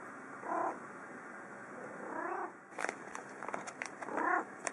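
Calico cat meowing three times in short, excited calls, the middle one longer with a rising pitch, as she begs for food. Between the second and third meows comes a run of light clicks and taps.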